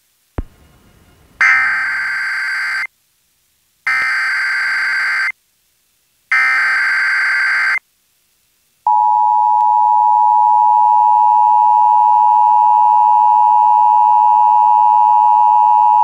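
Emergency Alert System broadcast over FM radio: three bursts of SAME header data, the raspy digital screech of the encoded alert, each about a second and a half long with short gaps between. About three and a half seconds into the tones, a steady two-tone attention signal (853 and 960 Hz together) starts and holds.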